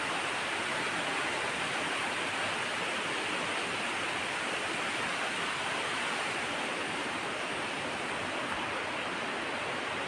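Steady rushing of a waterfall, an even hiss of falling water that neither rises nor falls.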